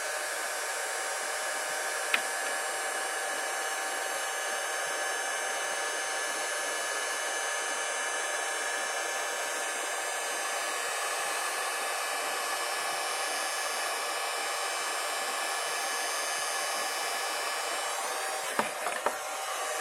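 Electric heat gun on its low setting blowing steadily, a hair-dryer-like rush of air and fan noise, heating a solder-sleeve heat-shrink connector. A single click comes about two seconds in, and a few light knocks come near the end.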